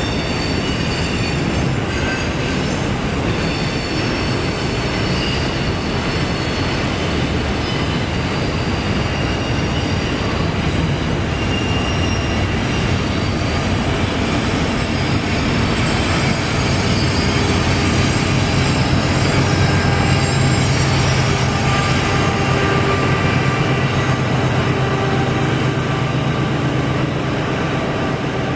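Double-stack freight train rolling past, its wheels squealing in thin high tones as it takes the curved trestle over the steady rumble of the cars. A low diesel drone swells in the second half as the rear locomotives, working upgrade, come by.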